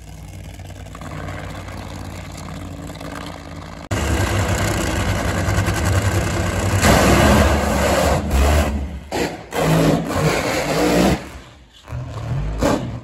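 Nitro Funny Car engines running at full power, very loud. The level is lower for the first few seconds, then jumps suddenly about four seconds in and stays loud, with several brief dropouts near the end.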